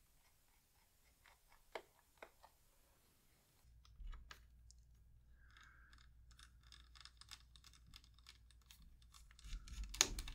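A small screwdriver turning the captive screws in a laptop's aluminium base cover. It makes quick little clicks and scrapes: a few faint ones at first, a denser run of ticks from about four seconds in, and one louder click near the end.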